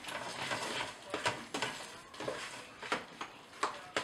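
A spoon stirring thick cooked pasta and melting cream cheese in a pressure cooker's inner pot, with irregular scrapes and knocks of the spoon against the pot.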